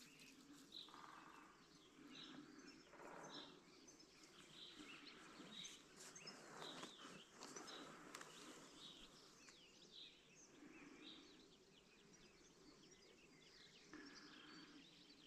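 Faint small-bird chirps, repeated about once a second, over a quiet open-air background.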